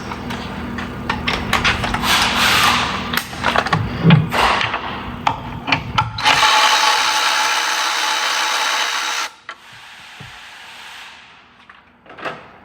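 Hand tools clatter and click against metal, then a power tool runs steadily for about three seconds and cuts off suddenly.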